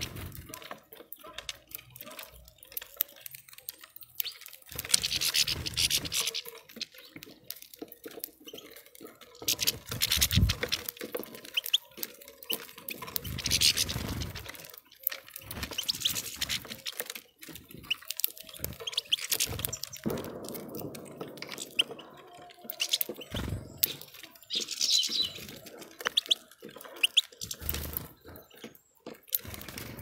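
Small birds feeding at a seed feeder: irregular pecking and tapping clicks, with louder rustling bursts every few seconds.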